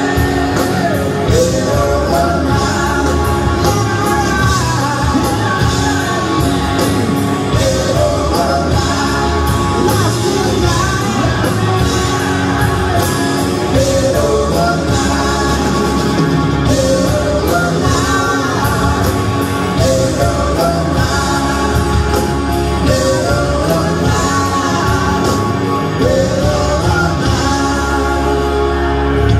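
Live rock band playing: a male lead vocal over guitars and a steady drum beat, loud and full in a large room.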